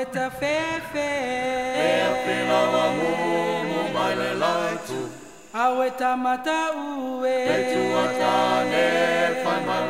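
Soundtrack music: a group of voices singing a Polynesian song in harmony, with little or no accompaniment, with a short pause between phrases about five seconds in.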